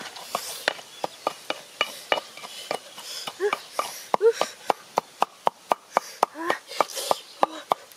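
Rapid, even chopping strokes on wood, about three a second, typical of a blade cutting food on a wooden board.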